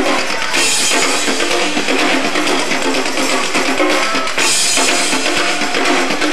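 Live rock band playing an instrumental passage driven by drum kit and hand drums, with cymbal crashes about half a second in and again about four and a half seconds in.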